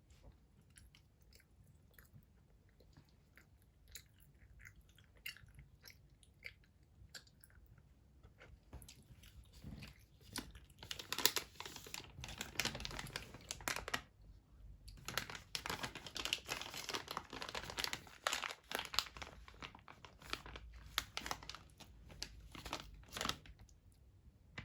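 Gummy candy being chewed close to the microphone. Faint mouth clicks come first, and from about nine seconds in there are two long stretches of dense, wet chewing, broken by a short pause.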